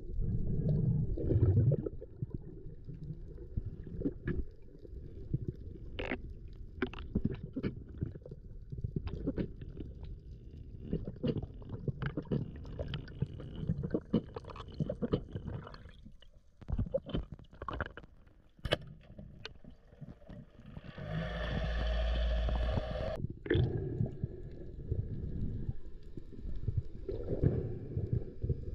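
Muffled low rumble and gurgling of water heard through a camera housing, with many scattered sharp clicks. About two-thirds of the way through, a louder, steadier sound with a pitched hum lasts about two seconds, then cuts off sharply.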